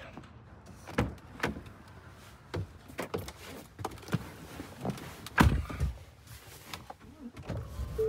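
Scattered clicks and knocks of someone climbing into a Ford pickup's cab, with a heavy thump about five and a half seconds in as the truck door is pulled shut.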